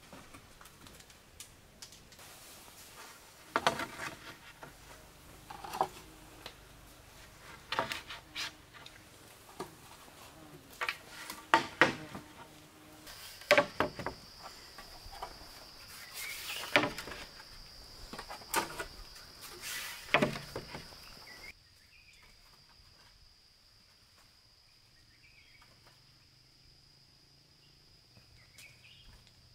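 Sharp knocks, about ten of them a second or two apart, which stop about two-thirds of the way through. A steady, high insect trill comes in near the middle.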